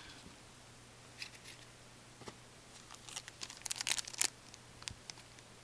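Foil trading-card pack crinkling and tearing as gloved hands open it. Faint, with a few scattered crackles and then a quick cluster of them about three to four seconds in.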